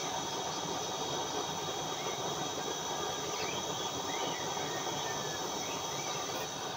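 Waste-oil burner stove running: a steady, even rushing hiss from the burner.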